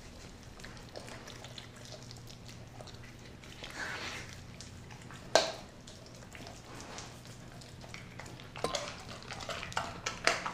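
Doberman licking and chewing a piece of raw turkey on a tile floor: wet smacking and lapping with scattered clicks. One sharp knock, the loudest sound, comes about five seconds in, and the smacking grows busier near the end.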